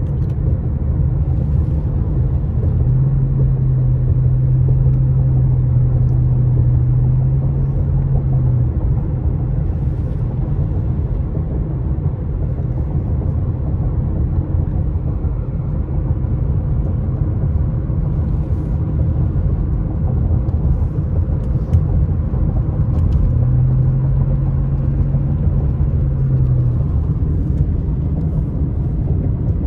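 Car cabin noise while driving on wet pavement: a steady low rumble of tyres and engine. A low drone comes in twice for a few seconds, first near the start and again near the end.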